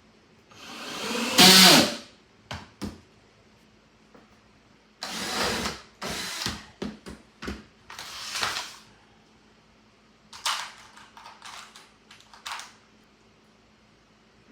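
Electric drill motors of a homemade drill-powered lathe run in short bursts: one longer, loud run about a second in, then a string of shorter runs, several lasting only a fraction of a second.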